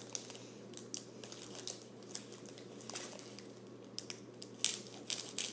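Trading-card booster-pack wrapper crinkling and crackling as it is handled and worked open, a run of small crackles that gets louder and busier near the end.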